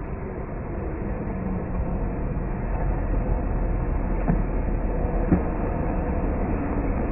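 A small hatchback car driving across open ground toward the microphone, its engine running with a low rumble that grows louder over the first couple of seconds. Two faint knocks come about four and five seconds in.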